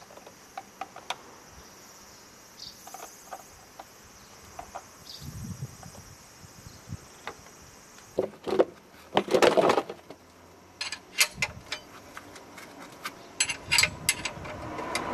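Insects chirping steadily in the background, with scattered light clicks and knocks of hands and tools on the engine. Louder rustling knocks come in the middle, then a run of sharp metal clicks near the end, with a ring spanner set on the oil drain plug.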